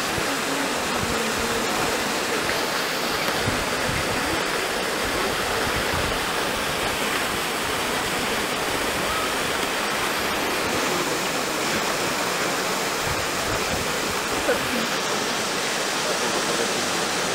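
Steady rush and splash of water as young Asian elephants play in a pool.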